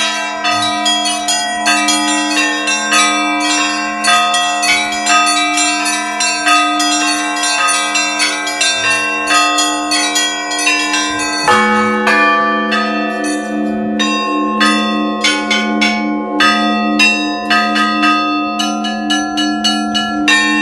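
Russian church bells rung by hand (zvon): small high bells struck in quick, dense patterns over the ringing hum of larger bells. About halfway through, a heavier, lower bell is struck and the ringing settles into a new pattern.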